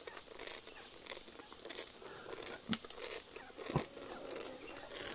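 Dry leaf litter and twigs crackling and rustling as they are pushed aside and handled, in irregular crunches, with one sharper snap about four seconds in.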